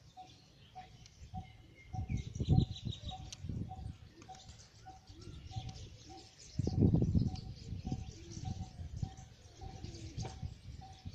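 Birds chirping and calling outdoors, with a steady run of short low notes repeating about three times a second underneath. Low rumbles of wind on the microphone come about two seconds in and again near the middle.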